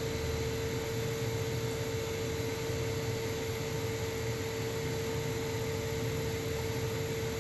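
Steady whir of a PC's cooling fans running under a FurMark GPU stress test, with a constant mid-pitched hum and a low drone underneath.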